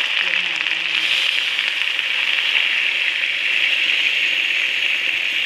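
Hot wok sizzling and hissing steadily after liquid is added to chicken fried in red curry paste. The liquid is coming up to the boil, and the sizzle eases off near the end.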